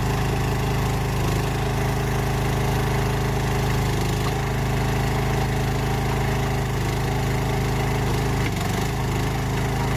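Chinese mini skid steer's engine running steadily under load, powering its hydraulic trencher. The engine note wavers briefly about eight and a half seconds in.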